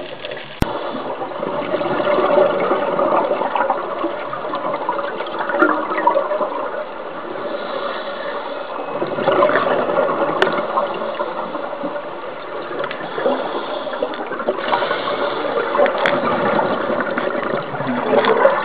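Underwater rush of a scuba diver's regulator breathing and exhaled bubbles, swelling and easing every few seconds, with a sharp click about half a second in.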